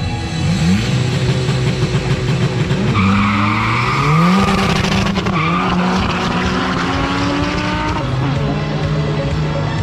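Racing vehicle engine accelerating hard, its pitch climbing in steps through the gears and dropping about eight seconds in, with tyre noise in the middle.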